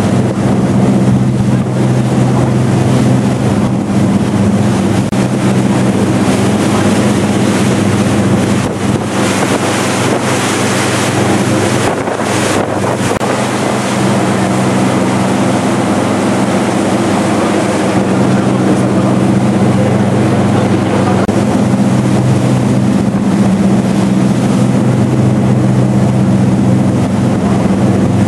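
Ferry engine running at steady cruising speed, a low drone under the rush of wake water. Wind buffets the microphone, gusting harder for a few seconds near the middle.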